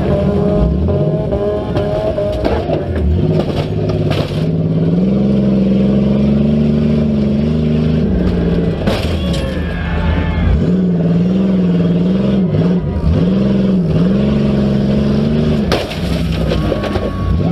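Demolition derby car engine revving up and down over and over as the car drives and backs, with several sharp bangs of metal impacts along the way.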